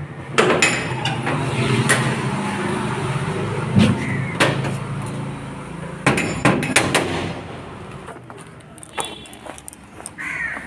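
Sharp metallic clanks and knocks from a painted iron gate and its bolt being worked open, with a cluster of clanks a little past the middle, over a steady low hum that fades out later on.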